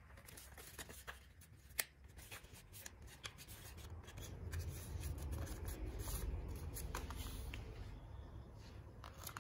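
Paper rustling and crinkling as hands fold and pull open a pink paper boat, with a sharp crisp snap about two seconds in.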